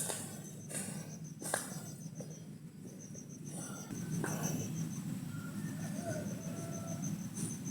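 Insects chirping in a fast, even pulsing trill, broken off briefly now and then, with a few sharp clicks or rustles in the first half.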